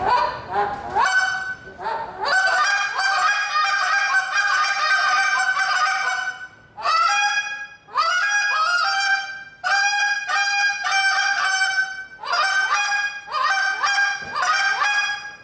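A goose call blown by a contest caller, imitating geese: rapid runs of short, loud honks, many starting with a quick upward break in pitch, broken every second or two by brief pauses.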